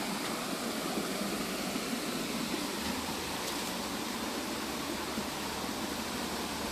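Rushing water of a waterfall, a steady, even hiss with no breaks.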